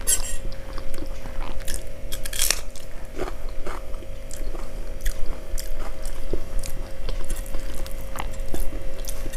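Close-miked eating sounds of moong dal khichuri eaten by hand: chewing and mouth smacks, with many irregular short clicks, over a faint steady hum.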